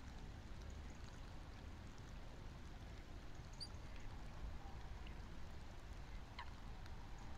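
Steady rain falling on the marsh, heard as an even low rushing on the webcam's outdoor microphone, with two faint short high chirps about halfway through and near the end.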